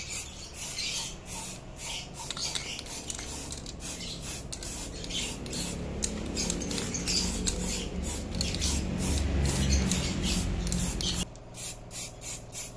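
Aerosol spray paint can hissing in quick repeated bursts as it coats metal motorcycle slider spools. A lower rumble swells underneath midway and cuts off sharply near the end.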